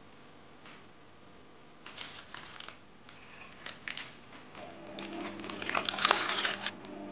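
Baking parchment crinkling as hands grip and move the paper-lined tart dish. A few scattered crackles come about two seconds in, then a denser, louder run of crinkling that is loudest about six seconds in.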